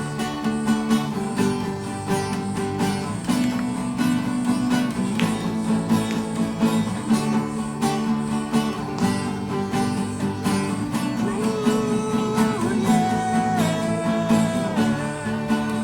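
Acoustic guitar strummed steadily as the accompaniment to a worship song, with a few held, sliding melody notes over it in the last few seconds.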